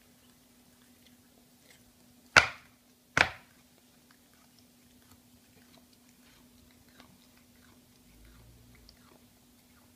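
A Selkirk Rex cat chewing and biting off cat grass: faint, crunchy clicks of chewing throughout. About two and a half seconds in come two loud, sharp knocks less than a second apart, much louder than the chewing.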